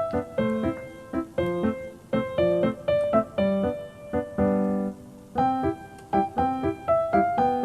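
Background piano music, a light melody of struck notes at about two a second.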